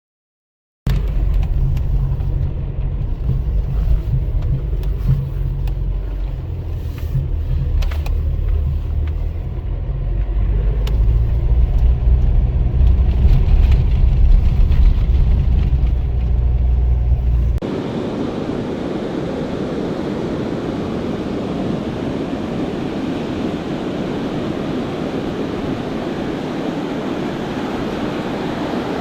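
A motor engine running with a steady low rumble, which cuts off abruptly about two-thirds of the way through to the even rush of waves and wind.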